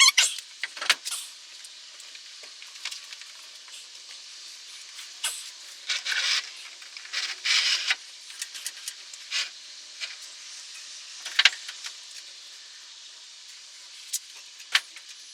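Scattered clinks and knocks of hand tools and metal parts, with two short hissing bursts about six and seven and a half seconds in.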